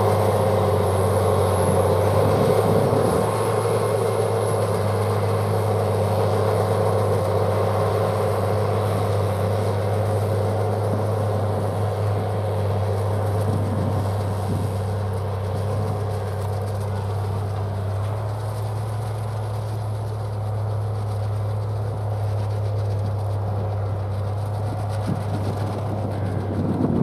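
Tractor engine running steadily under load with a low drone, pulling a Pöttinger self-loading forage wagon that is picking up a grass swath. The sound fades slightly as the outfit moves away.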